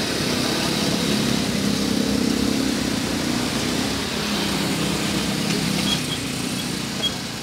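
250cc ATV quad bike engines running at low speed as the quads ride past. The engine note swells and eases slightly and drops off somewhat about six seconds in.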